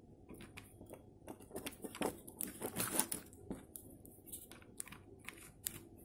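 Faint handling noise: scattered clicks and rustles of cables and plastic as a USB cable is plugged into a laptop port.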